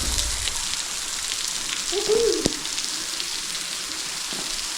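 Steady hiss of a waterfall's falling water. About two seconds in there is a short pitched call or voice sound, then a sharp click.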